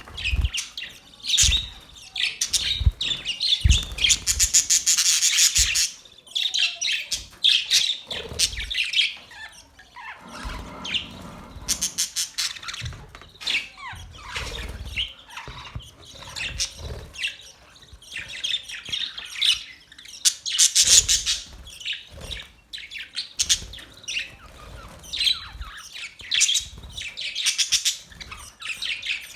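Small birds chirping and twittering in fast runs of high chirps, coming in bursts with short pauses between them.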